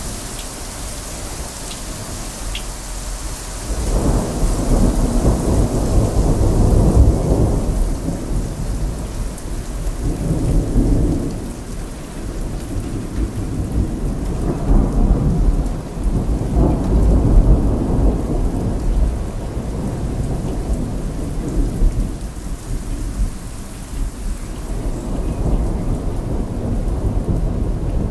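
Heavy rain falling steadily, with thunder rolling in long waves of rumble, the first building about four seconds in.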